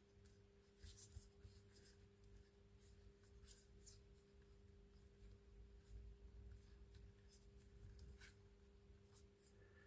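Faint, scattered clicks and scraping of a plastic twisty puzzle cube being handled and turned by hand, over a low steady hum.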